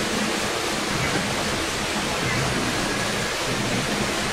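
SmartShop CNC router running: a steady rushing noise over a low hum.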